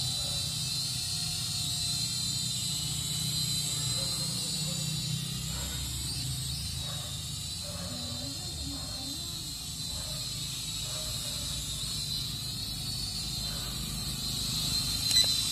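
Syma X5UW toy quadcopter's motors and propellers whining at a steady high pitch as it hovers, the pitch wavering slightly as it moves, over a low rumble. A short sharp knock comes near the end.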